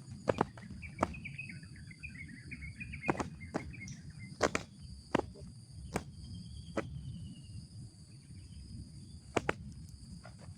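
Steady high-pitched insect buzzing, with a quick falling series of small-bird twitters in the first few seconds and a thin whistle a little after the middle. Sharp clicks come scattered throughout.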